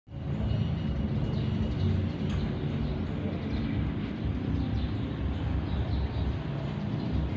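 Outdoor ambience: a steady, fluctuating low rumble with a few faint high chirps.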